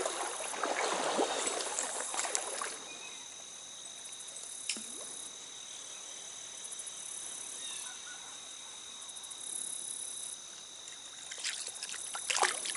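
A small trout stream running and trickling, with a steady high whine throughout. The water is louder for the first couple of seconds, and a cluster of sharp clicks comes near the end.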